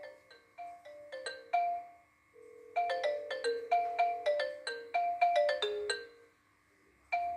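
Viber incoming-call ringtone playing on a Samsung Galaxy Note 10: a melody of quick, sharply struck chiming notes. It pauses for about a second near the end, then the tune starts over.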